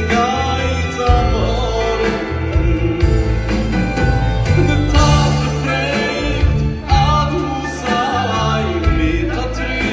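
Live music: a male singer sings a melody over an orchestra with violins and a steady bass line.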